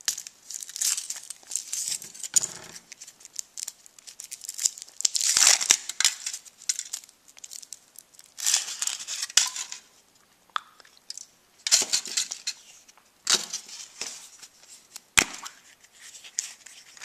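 Foil wrapper of a Kinder Surprise egg crinkling and tearing as it is peeled off by hand, in several bursts of rustling with pauses between. A sharp snap near the end.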